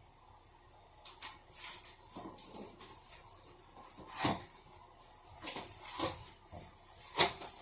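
Scattered knocks, clunks and rustles of things being handled, with two louder knocks, one about halfway through and one near the end.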